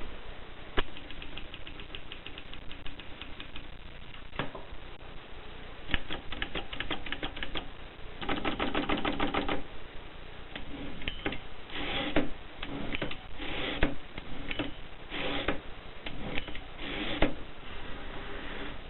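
Mercedes Prima manual typewriter in use: keys striking in quick runs of clicks, broken by longer mechanical rattles, the longest and loudest about halfway through.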